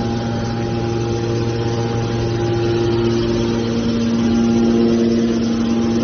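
Hydraulic power unit of a scrap car baler running, its electric motors and hydraulic pumps giving a steady hum with a whine, a little louder about four seconds in.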